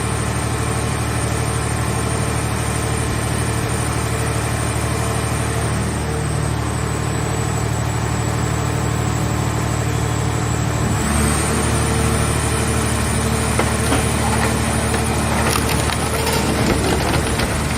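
Scrap car-shell baler's power unit and hydraulics running steadily with a high whine. About eleven seconds in the pitch shifts and the press comes under load, and near the end the sound is thick with sharp cracks and pops as the car body is crushed.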